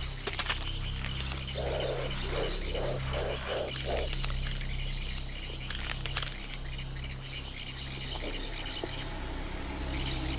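Outdoor animal ambience: a quick run of about six short croaking calls a couple of seconds in, over a steady high-pitched chirping.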